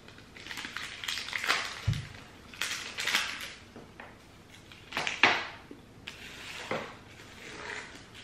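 Paper and foil candy bar wrapper crinkling and rustling in short bursts as it is handled, with a dull thump on the table about two seconds in.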